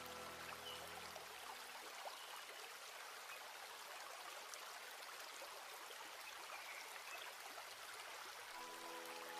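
Steady rushing hiss like running water or rain. Soft background music fades out about a second in and comes back near the end.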